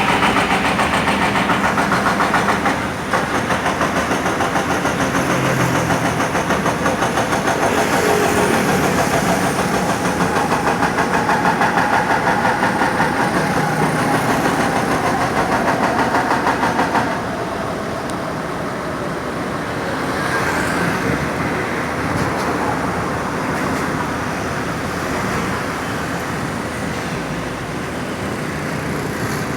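Sumitomo excavator's hydraulic breaker hammering concrete in a fast, regular stream of blows over its engine, stopping a little past halfway. The excavator's engine then runs on steadily.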